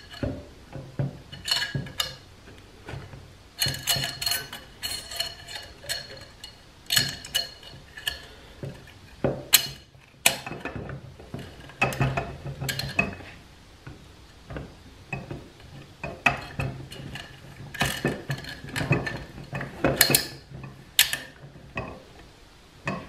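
Wavy snap ring being worked into its groove in a 47RE transmission's steel forward clutch drum: irregular metallic clicks and clinks of steel on steel, some ringing briefly.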